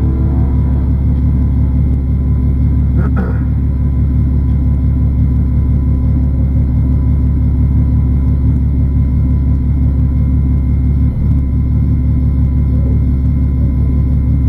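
Bi-turbo 3.2-litre VR6 engine of a Golf 2 R32 BiTurbo 4Motion idling steadily, heard inside the cabin as a loud, even, low rumble with no revving.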